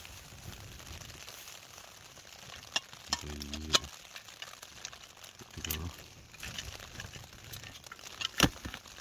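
Sharp clicks and clunks of a camping gas stove being handled: a blue burner unit on a gas canister in a cloth pouch, about five knocks spread through, the loudest near the end, over a steady light hiss.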